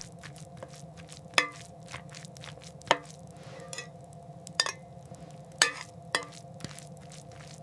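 Quiet, faint steady hiss with a light hum, broken by about half a dozen scattered sharp clicks and crackles.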